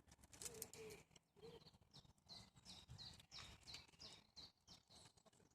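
Faint bird song: a run of short, high, down-slurred chirps repeated about three times a second, with light clicks and rustles.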